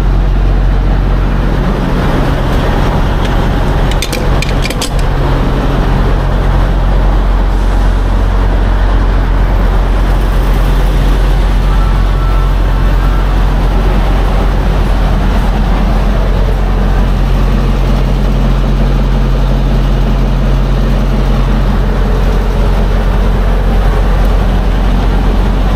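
Diesel engine idling steadily with an even, deep hum. A few sharp clicks come about four seconds in.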